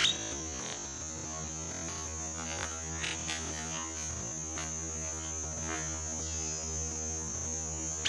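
A steady electrical hum with a high, steady whine above it. Three faint short bird chirps come through: one at the start, one about three seconds in and one a little before six seconds.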